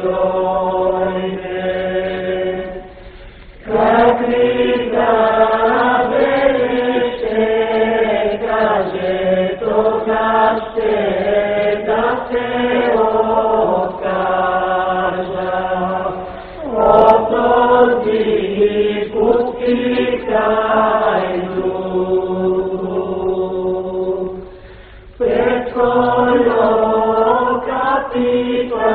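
A choir singing a slow song in long held notes, breaking off briefly twice between phrases.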